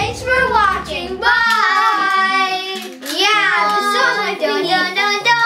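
Children singing in long, gliding notes over background music with a stepping bass line.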